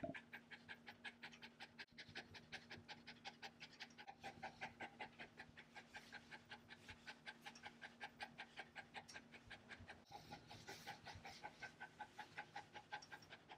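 Mini American Eskimo dog panting quickly and evenly, faint, with a low steady hum underneath.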